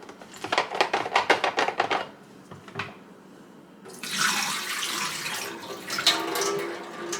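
Water emptied from an ultrasonic cool-mist humidifier's tank into a sink: a short burst of sloshing and glugging, then from about four seconds in a steady stream of water splashing down.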